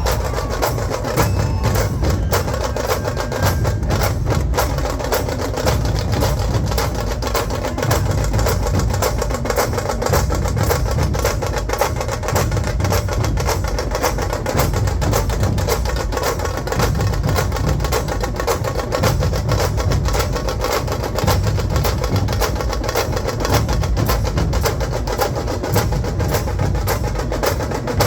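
Dhol-tasha ensemble drumming: massed dhol drums beating a heavy low pulse under fast, sharp tasha strokes, in a dense, continuous rhythm.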